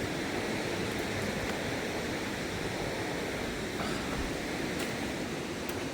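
Steady outdoor rushing noise, even and unbroken, with no clear events in it.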